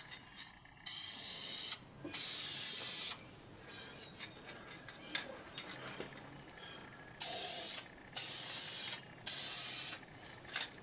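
Aerosol can of spray lacquer hissing in five bursts of about a second each: two near the start and three close together near the end, with a pause of about four seconds between. Faint clicks and knocks come between the bursts.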